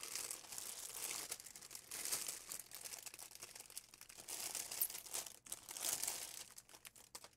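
A clear plastic bag crinkling and rustling faintly in uneven bursts as it is handled, the small packets of diamond painting drills inside shifting against each other.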